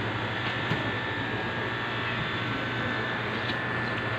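Steady mechanical hum with a thin high whine over an even rush of noise, like a running fan or motor, and a couple of faint light knocks.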